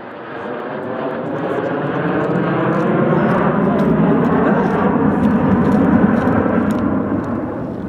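A formation of aircraft flying past overhead. The engine noise swells to its loudest about six seconds in, then begins to fade.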